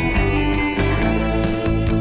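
Background instrumental music led by guitar, with a steady beat of drum hits.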